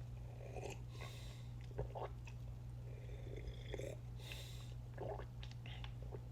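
Faint mouth sounds of a person drinking iced tea from a bottle: soft swallows and breaths coming every second or so, over a steady low hum.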